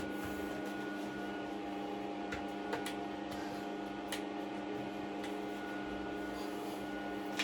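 Steady electrical hum of a switched-on MIG welder standing ready before the arc is struck, with a few faint clicks.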